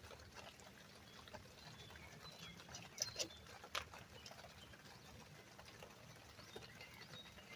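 Mostly quiet, with a few faint sharp clicks about three seconds in from a 3/8-inch ratchet working loose the lower rear brake-caliper bolt.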